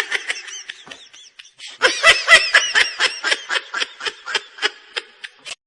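High-pitched, rapid giggling laughter made of quick repeated 'hee' pulses, about five a second. It is faint at first, loudest about two seconds in, and trails off toward the end.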